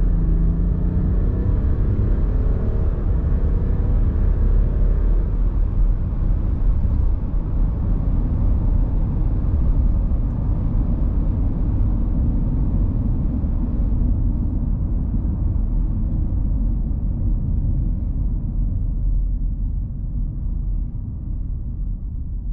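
2023 Land Rover Discovery D300, its 3.0-litre turbo-diesel inline-six running on the road with tyre and road noise, heard as a steady low rumble. The rumble grows quieter and duller over the last several seconds.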